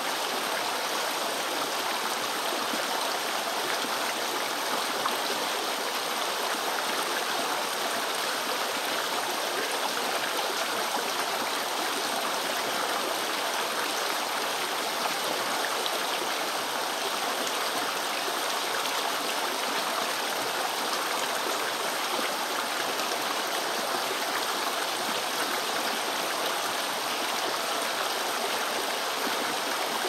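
Shallow forest stream babbling steadily, an even, unbroken rush of running water.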